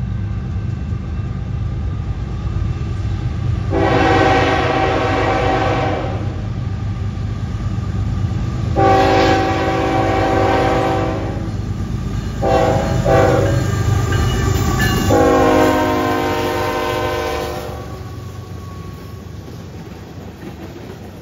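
Canadian National freight locomotive's air horn sounding a chord in the grade-crossing pattern: long, long, short, long. A steady diesel rumble runs underneath and fades near the end as the locomotives pass and the freight cars roll by with a wheel clatter.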